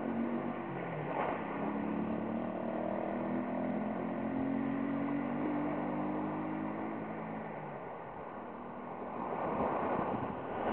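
A motor vehicle's engine running as it passes on a nearby road, a steady hum that rises slightly in pitch and fades out after about seven seconds. A rush of wind on the microphone follows near the end.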